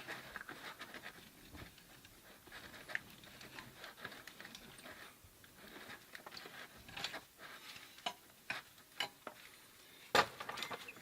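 Tubing cutter being turned around a thin copper pipe: faint, irregular scraping and small clicks, with one louder metallic knock about ten seconds in.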